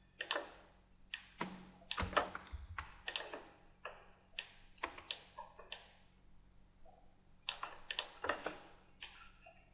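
Computer keyboard keys and mouse buttons clicking in short, irregular clusters, with a sparser stretch a little past the middle.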